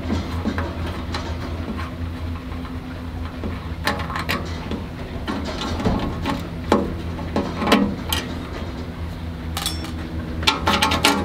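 Scattered metal clicks and clinks as a bolt and spring nut are undone to free a damper cover from a stainless steel grill lid, a handful of separate knocks with a quick run of them near the end. A steady low hum sits underneath.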